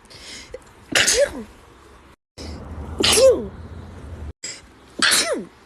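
Three human sneezes about two seconds apart, each a sharp burst of breath ending in a voiced 'choo' that falls in pitch. Abrupt silent cuts separate them.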